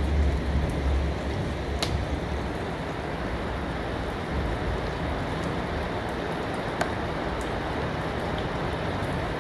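Steady rain falling: an even hiss with a low rumble underneath and scattered sharper drop ticks, two standing out at about two seconds and seven seconds in.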